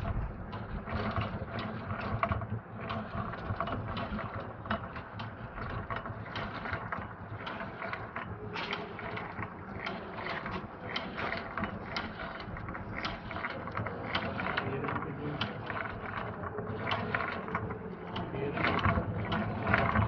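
Pedal-powered washing machine's chain drive and rack-and-pinion gearing running, with fast, continuous clicking and clattering as the pedals drive the agitator back and forth.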